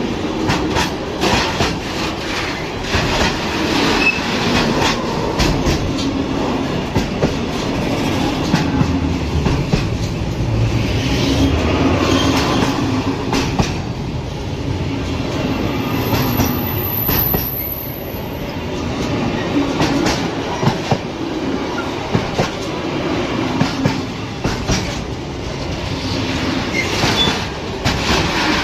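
A train passing close by: a steady rumble, with the wheels clicking over rail joints all the way through and a brief high squeal around the middle.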